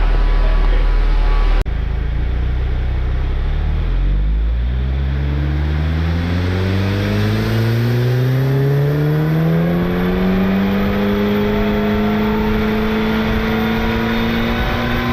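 Car engine pulling hard under acceleration, its note rising smoothly over about ten seconds before levelling off near the top. It follows a sudden cut a second or two in.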